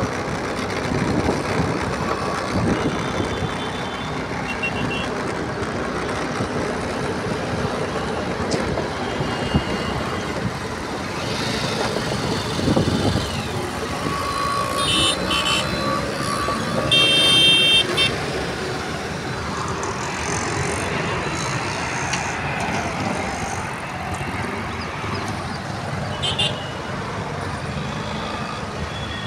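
Steady road traffic passing, with trucks, autorickshaws and motor scooters. Short vehicle horn toots sound a few times around the middle and once near the end.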